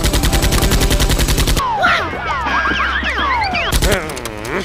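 Automatic gunfire sound effect, a rapid burst of about a dozen shots a second for about a second and a half. It gives way to a tangle of high whines gliding up and down, with a short loud burst near the end.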